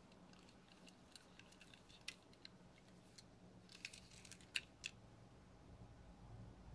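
Faint scattered clicks and light taps of a small die-cast Matchbox Toyota 4Runner model being turned over in cotton-gloved fingers, the loudest clicks about four to five seconds in. A low hum swells near the end.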